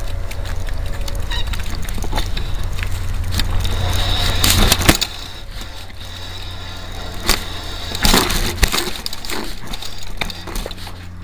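Mountain bike rolling over a dirt trail, picked up by a camera mounted on the front of the bike: a steady low rumble of wind and vibration with the bike rattling and knocking over the ground. The rumble is heavy for the first few seconds and then eases, with loud cracks and jolts about four to five seconds in and more around seven to eight seconds.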